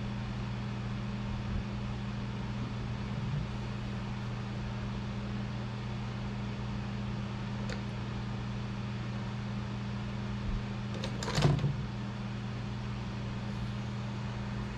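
Steady low room hum with no speech. A faint click comes about eight seconds in, and a short knock with a brief rustle comes a few seconds before the end, the loudest moment, as a phone is handled and set down on a table.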